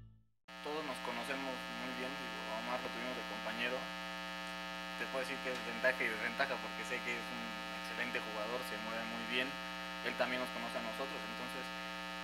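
Steady electrical mains hum with a buzzy edge, starting abruptly about half a second in, with faint, indistinct voices over it.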